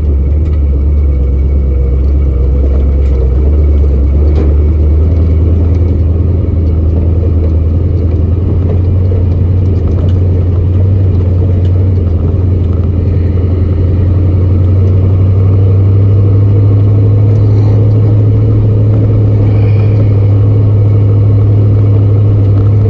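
Old pickup truck running and driving, a steady low engine drone that rises a little in pitch about two-thirds of the way through as it speeds up.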